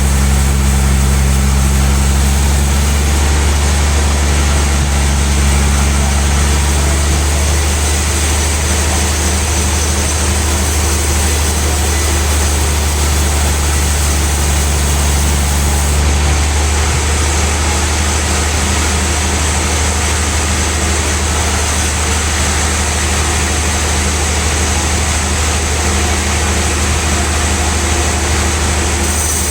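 Large sawmill band saw running steadily with a loud, even low hum; a couple of its steady tones drop out about a quarter of the way in and again about halfway through.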